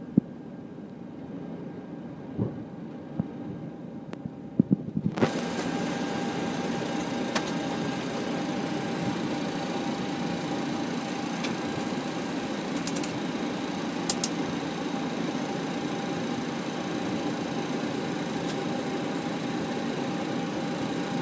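Steady cockpit noise of a taxiing Boeing 737-800: a constant hum and rush of engines and air conditioning. A few sharp clicks come in the first five seconds, and about five seconds in the noise steps up, louder and hissier, then holds steady.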